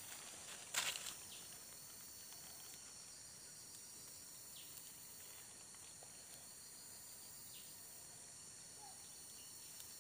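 Steady, high-pitched chorus of insects, with a short crackling rustle just under a second in.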